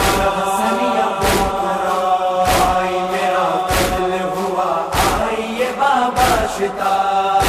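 Urdu noha lament chanted by a group of voices on long held notes, over a regular sharp beat about every 1.2 seconds, the rhythm of mourners' matam (chest-beating).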